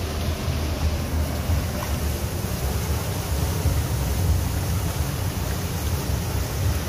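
River rapids: white water rushing and churning, a steady, deep rushing noise.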